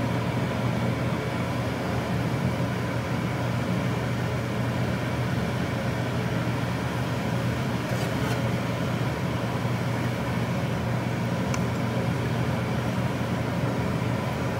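Steady low roar of a gas burner under a large stockpot of simmering beef bone broth, with a couple of faint clicks midway.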